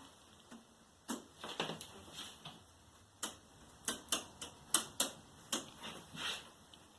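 Irregular sharp clicks and light taps from small parts being handled and taken off inside an opened LED TV, several in quick succession around the middle.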